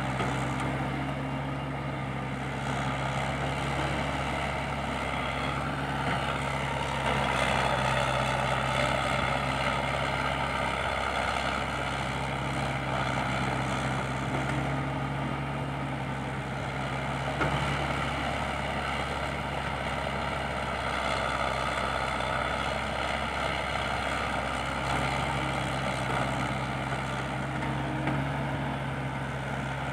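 Diesel engine of a small Komatsu crawler excavator running hard while it digs and loads soil, its note and load shifting as the hydraulics work the boom and bucket.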